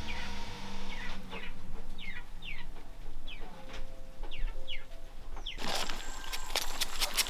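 Chicks peeping: short falling chirps, a few each second. Just over five seconds in, a louder rustling, crackling noise with many sharp clicks takes over.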